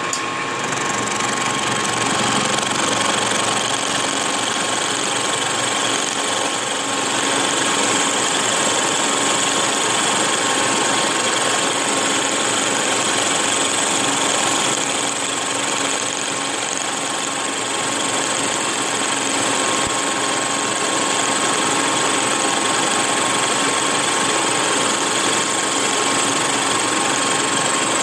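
Fritz Werner milling machine running an end mill through steel in one continuous cut: a loud, even cutting noise with a steady high tone over it.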